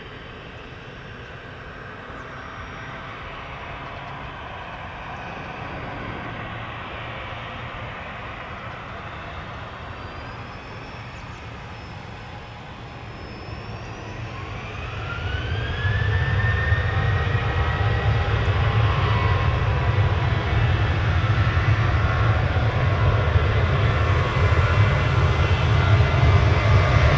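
Jet airliner engines spooling up: a whine rises a little past halfway and then holds at one pitch, while a low rumble builds and grows steadily louder.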